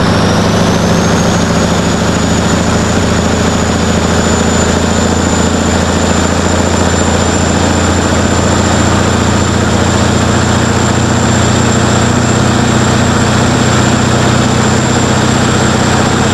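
Diesel truck engine running at a steady speed, with a thin high whine that rises about a second in and then holds steady.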